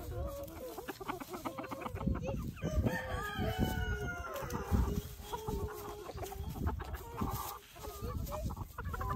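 A flock of chickens clucking continuously, with a rooster crowing once, a long call, about three seconds in.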